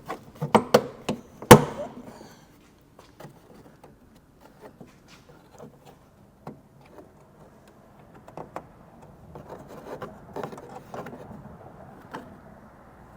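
Plastic liftgate trim panel being pressed back on and its retaining clips pushed into their holes: a quick run of knocks and clicks, the loudest about a second and a half in, then scattered light taps and plastic rubbing against plastic.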